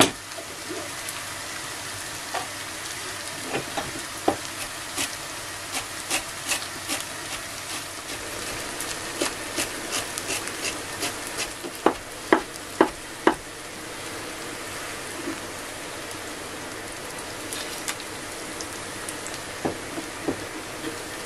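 Diced peppers, onion and garlic sizzling steadily in olive oil in a frying pan, with a chef's knife chopping parsley on a plastic cutting board: a run of quick taps, then a few louder knocks about twelve seconds in.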